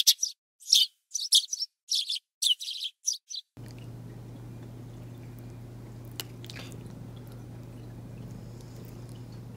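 A quick series of about eight high bird chirps over a dead-silent background, a birdsong sound effect marking morning, cut off abruptly after about three and a half seconds. Then a steady low hum of room tone with a couple of faint clicks.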